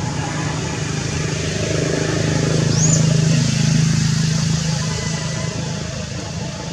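A passing motor vehicle: a low engine hum that grows to its loudest about halfway through, then fades away.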